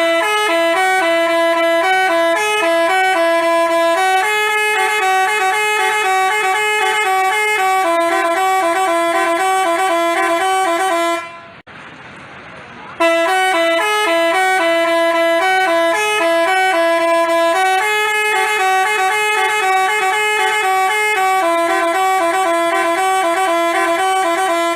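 Basuri-type telolet bus horn playing a melody of stepping notes. The tune runs about eleven seconds, stops briefly just before halfway, and is then played again the same way.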